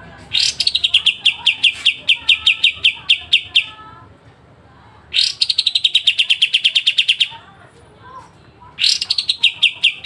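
Kapas tembak (a bulbul) singing its sharp, rapid phrases: three bursts, each opening with a high downward-sliding note and running into a fast, even series of sharp notes, several a second. Fainter bird chirps sound between the bursts.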